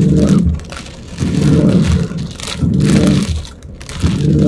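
Car windshield wipers sweeping a rain-wet windshield, heard from inside the cabin: a rubbing, slightly juddering sweep about every second and a half.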